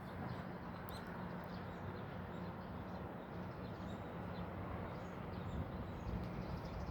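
Outdoor ambience: small birds chirping faintly and irregularly over a steady low hum.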